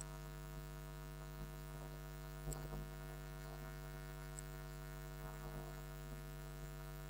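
Steady electrical mains hum from the sound system, an even stack of tones, with a few faint clicks.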